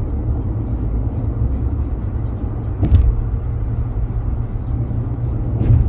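Road noise inside a car's cabin at highway speed: a steady low rumble from the car and its tyres on the road, with two brief thumps about three seconds apart.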